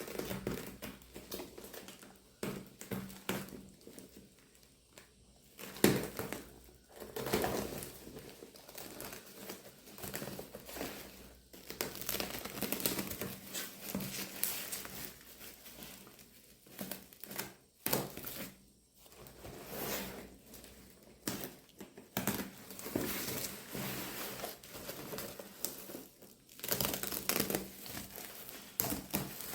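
Packaging of an ST-666 tripod stand being unwrapped by hand: irregular crinkling and crumpling with some tearing, and a sharp knock about six seconds in.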